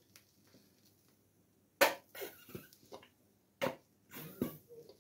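Plastic squeeze bottle of mayonnaise being squeezed over a burger in a pan, giving a few sharp spluttering squirts and clicks. The two loudest come about two seconds apart.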